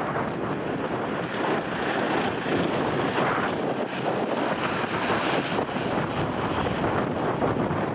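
Wind buffeting the microphone over the engine and tyre noise of a Mercedes-Benz Sprinter ambulance driving past and turning; no siren can be made out.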